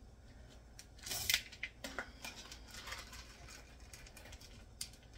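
Chocolate chips being shaken out of a tipped glass jar into a measuring cup: scattered rattles and small clicks, the loudest run about a second in.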